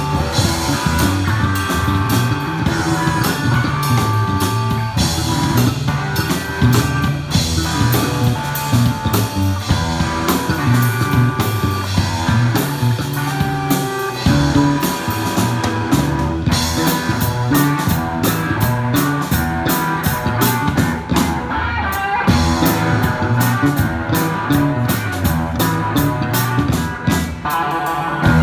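Live rock band playing loud through amplifiers: two distorted electric guitars over a drum kit, in an instrumental stretch without singing.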